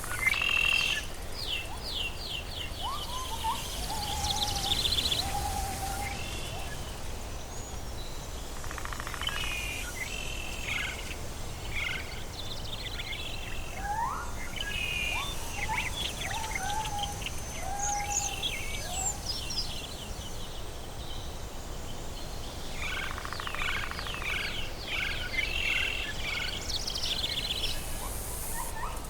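Tropical forest ambience: several birds calling, with rapid chirps and trills high up and a lower whistled phrase of short falling notes heard twice, over a steady low rumble.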